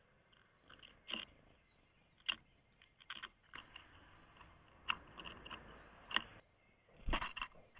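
Birds pecking at seed on the 3D-printed plastic feeder ledge: irregular sharp taps and clicks about once a second, with a quick cluster near the end.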